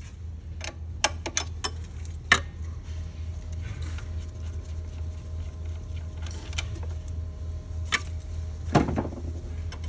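Irregular metallic clicks and clinks of wrenches on the high-pressure fuel line fittings of a Detroit Diesel DD-series engine as the lines are loosened, with a heavier knock near the end. A steady low hum runs underneath.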